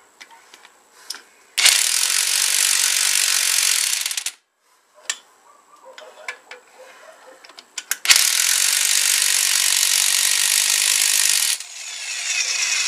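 Impact wrench hammering a flywheel nut onto a Tecumseh small engine's crankshaft, in two runs of about three seconds each with a pause between, and a shorter, weaker run near the end.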